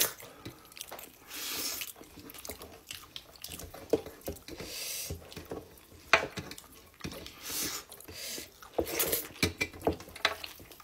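Eating by hand: wet squelching and dripping as fingers mix finger-millet dhido into broth in a metal plate, with scattered small clicks of mouth and chewing sounds.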